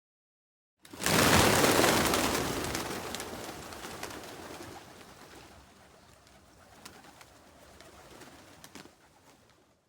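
A flock of pigeons taking off in alarm, a sudden loud burst of many wings flapping about a second in that fades steadily as the birds climb away.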